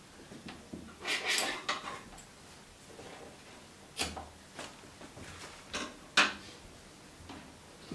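Thin wire being handled and laid on an OSB board: a scraping rustle about a second in, then scattered clicks and knocks, the sharpest just after six seconds.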